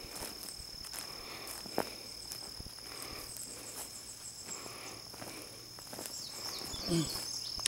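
Steady high-pitched insect chorus trilling in the summer woods, with a few faint clicks and rustles. A short low murmur from a man's voice comes near the end.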